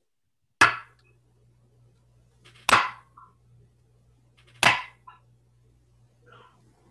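Three loud, sharp knocks about two seconds apart, each with a short echo in the room, over a faint low hum. It is a strepitus, the loud noise struck in a Good Friday service to mark Jesus's death.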